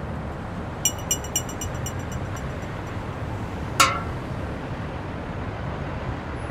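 A run of about six quick, light clinks on window glass, ringing and fading, over a steady low rumble; a little later comes a single very quick whistle falling sharply in pitch, the loudest sound.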